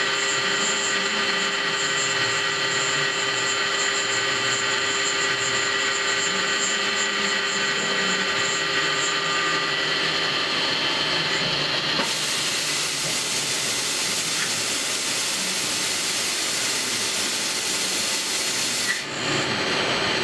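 Manurhin KMX 432 CNC lathe running while machining a brass part: a steady whine of several held tones. A loud hiss starts suddenly about twelve seconds in and cuts off sharply about seven seconds later.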